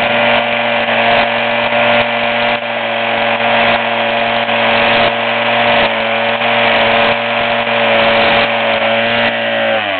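Small engine of a two-man motorised tea harvester running steadily at high speed while shearing the tops of tea bushes. Its pitch starts to drop near the end as the engine slows.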